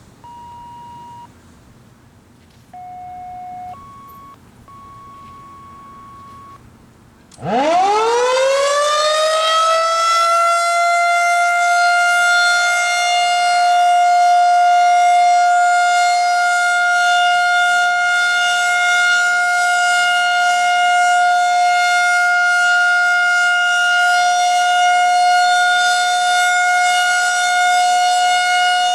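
Federal Signal 2001-130 rotating outdoor warning siren, battery-powered, winding up about seven seconds in from a low pitch to a loud, steady high tone that it then holds: the steady Alert signal of a siren test. A few short electronic beeps of different pitches come before it.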